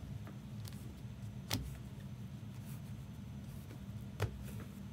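Steady low hum with two sharp clicks, one about a second and a half in and one about four seconds in.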